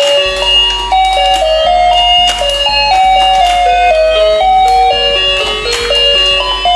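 Battery-powered rotating musical fishing game playing its electronic tune: a simple melody of single beeping notes stepping up and down, with a few light clicks.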